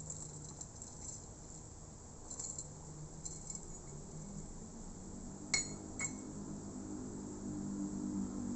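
Faint handling rustles, then two light clinks of hard objects knocking together, half a second apart, each with a short ringing tone.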